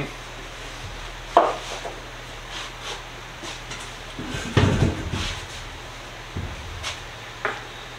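Steel sockets set down and shuffled on a wooden workbench: a few separate clinks and knocks, the sharpest a bit over a second in, and a short cluster of knocks about halfway through.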